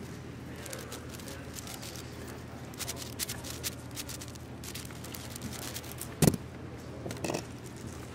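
Clicking turns of an AoShi WRM 6x6 speedcube, then one loud slap about six seconds in as hands hit the Speedstacks timer pads to stop the solve, with a smaller knock about a second later.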